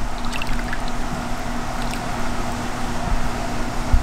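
Steady wash of swimming-pool water over a constant low hum, with a few faint small splashes.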